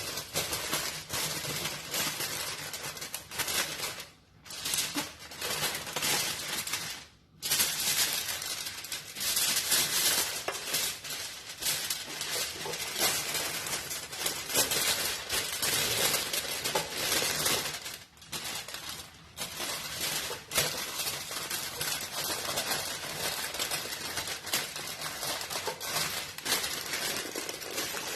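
Aluminium foil crinkling and crackling as it is folded and pressed around a springform cake pan to seal it against a water bath, a near-continuous stream of crackles with two brief pauses about four and seven seconds in.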